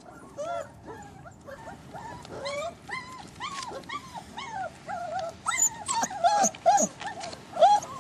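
Several four-week-old Fila Brasileiro puppies whimpering and yipping in short, rising-and-falling cries that overlap one another, growing louder and more frequent in the second half.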